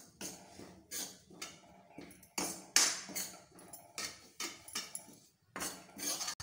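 Steel spoon scraping and knocking around the inside of a metal kadhai, about two strokes a second, stirring turmeric and dry ginger being roasted in a little oil.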